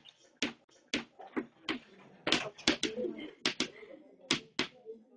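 Chalk tapping and scratching on a blackboard as a heading is written: about a dozen sharp, irregular taps in quick succession.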